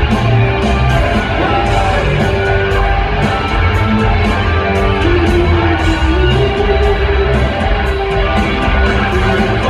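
Rock band playing live with electric guitars, bass and drums: a steady drum beat under held, sustained notes. Loud, heard from within the audience of a large hall.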